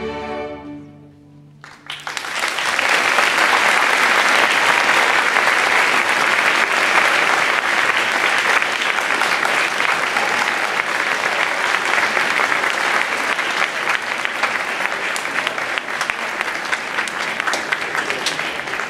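A string orchestra's final chord rings and fades out, then about two seconds in a large audience starts applauding, and the loud clapping goes on steadily to the end.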